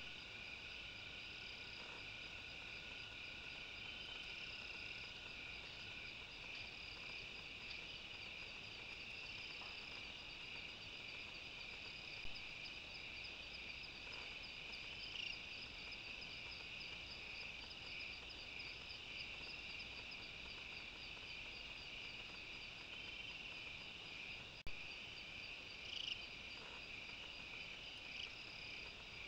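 Night chorus of crickets and other insects: a steady high trill with a fast, evenly pulsing chirp above it, and a few faint ticks.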